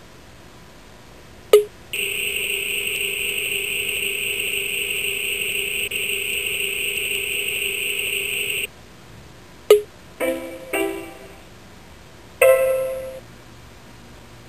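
Electronic interface sound effects from the Star7 prototype handheld's small Game Boy speakers. A quick falling blip leads into a steady buzzy electronic tone held for about seven seconds, which cuts off suddenly. Another falling blip follows, then three short ringing notes that die away.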